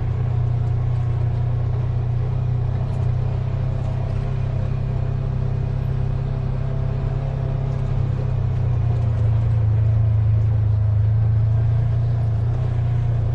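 Dune buggy engine running steadily in low gear as the buggy climbs a rough trail, picking up a little from about eight seconds in for a few seconds.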